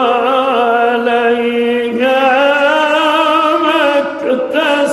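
A man recites the Quran in the melodic mujawwad style, drawing out a word in one long ornamented note that wavers and slides in pitch. The note breaks off about four seconds in, and a short new phrase follows.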